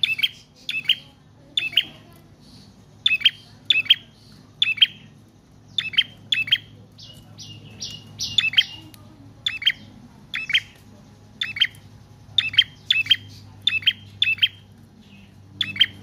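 Caged tailorbird calling: loud, sharp chirps repeated about once or twice a second, often in quick pairs, with a short scratchy run of notes about seven to nine seconds in.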